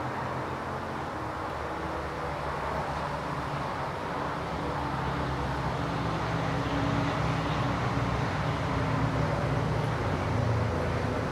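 Police helicopter circling overhead, its rotor and engine making a steady drone that grows a little louder over the middle of the stretch.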